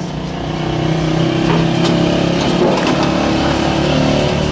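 An engine running steadily at an even pitch, growing a little louder over the first second.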